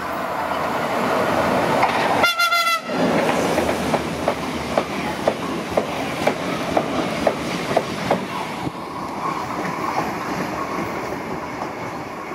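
A Renfe passenger train running past, with a short horn blast about two seconds in. Then comes the rolling rumble of the wheels with regular clacks over the rail joints, about two a second, easing off near the end.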